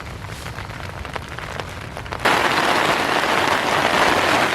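Rain falling on a tent, a steady patter with faint drop ticks. About two seconds in it turns suddenly into a much louder, dense downpour hiss.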